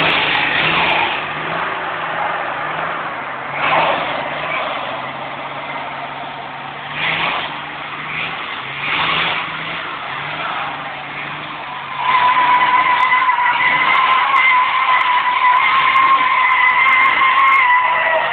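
Nissan Patrol 3.3-litre turbo engine revving in surges while its rear tyres spin. About two-thirds of the way in, the tyres break into a loud, steady squeal as the burnout builds.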